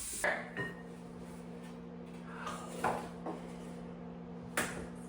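A few scattered knocks and bumps, like cupboard doors or drawers shutting, with the loudest near the end, over a steady low electrical hum.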